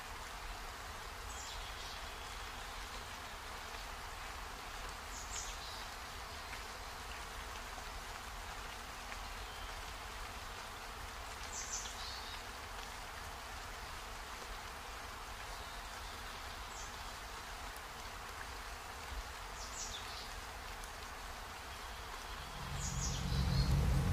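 Steady hiss from a pot of ginataang monggo cooking on the stove, with a few faint clicks of a wooden spoon against the pot. A louder low hum comes in near the end.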